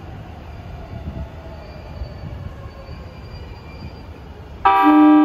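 E217-series electric train standing at the platform with a steady low hum, then its horn sounds suddenly and loudly near the end, one held pitched blast, as the departure warning.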